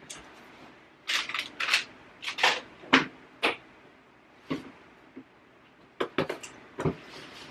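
Handling of cleaning things at a bathroom sink: a series of short rustles, clicks and knocks. The loudest is a sharp knock about three seconds in, and a second cluster comes near the end.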